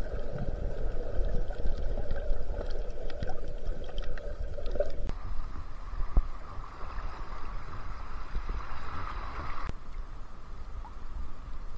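Muffled water sloshing and gurgling around a waterproof camera, first underwater and then at the surface. The sound changes abruptly about five seconds in and again near ten seconds.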